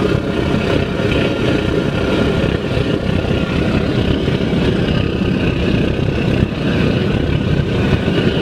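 300 kW waste oil burner, blower-fed and burning used vegetable oil, running steadily into a brick furnace: a loud, even rush of fan-driven flame and air.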